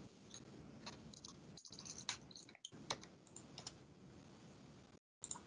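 Faint computer keyboard typing and mouse clicks: a quick scatter of clicks over the first few seconds, then a lull. The call audio cuts out completely for a moment near the end.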